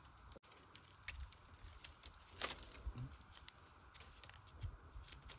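Dry bamboo leaves and twigs crackling and rustling in scattered small clicks as someone moves through a bamboo clump, with one sharper crack about halfway through.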